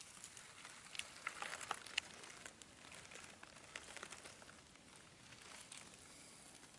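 Faint, irregular crackling and rustling of dry leaves and twigs on the forest floor, with a cluster of sharper cracks between about one and two seconds in.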